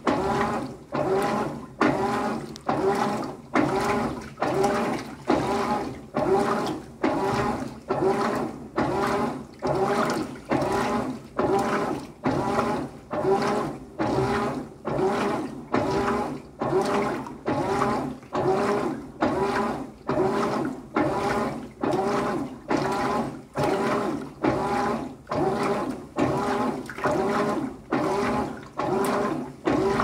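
GE GTW465ASN1WW top-load washer agitating a wash load in soapy water. The drive motor whirs back and forth in a steady rhythm of a little over one stroke a second, and each stroke is joined by a swish of water.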